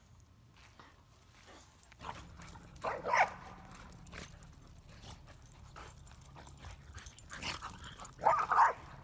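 Pit bulls at rough play, giving short play barks in two bursts, one about three seconds in and a longer one near the end, with scuffles of paws on grass between.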